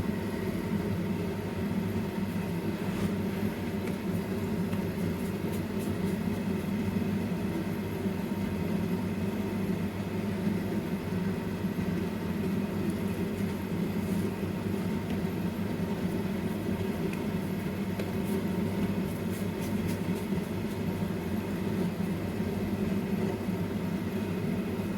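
A steady low hum with a few faint whining tones above it, unchanging throughout, like a motor or fan running.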